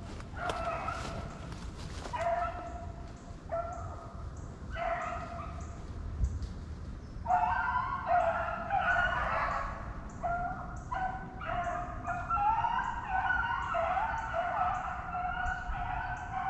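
A pack of rabbit hounds baying on the trail of a running rabbit. At first single voices call with short gaps between them; from about seven seconds in several dogs give tongue together, louder and almost without a break.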